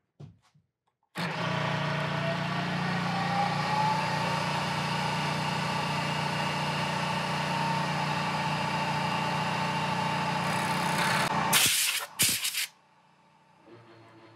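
A shop power tool starts abruptly and runs steadily for about ten seconds, cutting a part to length, with a tone that rises in pitch in the first few seconds. A few loud, harsh bursts of noise come near the end before it stops.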